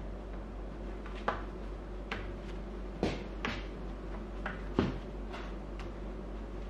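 A few light clicks and knocks, the loudest about three and about five seconds in, as a handlebar end cap is pressed into the end of a KOSO heated grip.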